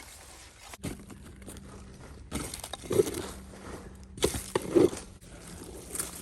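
Narrow flat-headed shovel chopping and scraping into dirt and roots, with several crunching strikes in a few bursts. A faint steady hum runs underneath.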